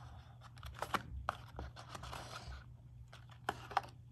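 Small cardboard box being handled and set down on a wooden table: fingers rubbing and scraping the cardboard, with a few light taps and two sharper knocks near the end.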